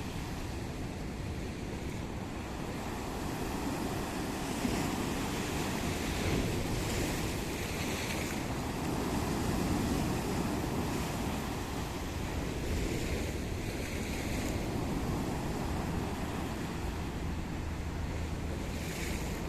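Mediterranean Sea waves washing onto the shore in slow swells, with wind noise.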